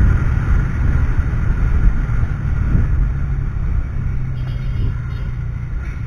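Steady low rumble of wind buffeting a helmet-mounted action camera's microphone while riding, with a vehicle engine running underneath.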